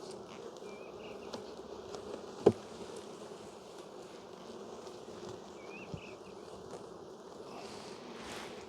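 Honey bees humming steadily around an open hive packed with bees, with one sharp knock about two and a half seconds in.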